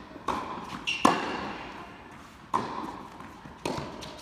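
A tennis ball struck by rackets and bouncing on the court in a rally: four sharp pops about a second apart, each echoing in the large indoor hall, the loudest about a second in.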